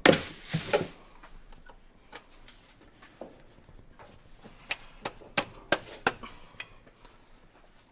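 A loud rustling clatter lasting about a second, then a handful of sharp clicks and taps from hands handling parts in the F-150's engine bay around the distributor and carburetor, with the engine not running.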